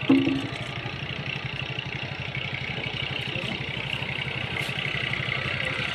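An engine idling steadily, with an even, rapid low pulse. A brief loud tone sounds just at the start.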